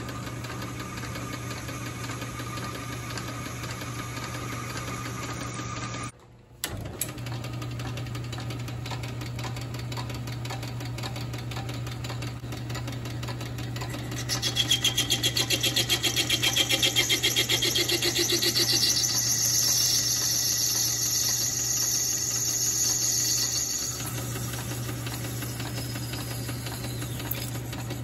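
Metal lathe running with a steady motor hum as a cutting tool turns a metal workpiece. About halfway through, a louder, high scraping hiss of the tool biting into the metal sets in for about ten seconds, then drops back to the hum; the sound breaks off briefly about six seconds in.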